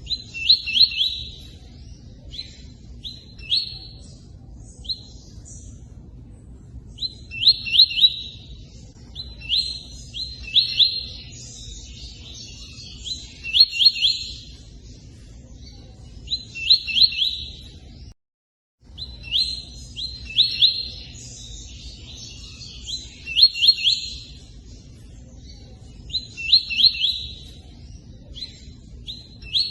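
Tui-tui bird singing short phrases of rapid, repeated chirping notes every few seconds, with pauses between them. Under the song runs a steady low rush of running water. All sound cuts out briefly about eighteen seconds in.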